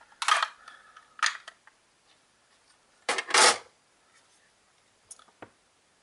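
Plastic clicks and scrapes as the back cover of a toy walkie-talkie's case is pried off, loudest about three seconds in when the cover comes free, then two small clicks near the end.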